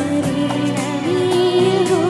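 A boy singing into a microphone over instrumental accompaniment with a steady beat, his voice sliding between held notes with vibrato.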